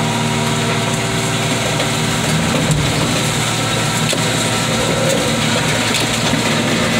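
Heavy diesel engine running steadily under load while the car crusher's lid lifts off the flattened cars, with a brief low knock a little under three seconds in.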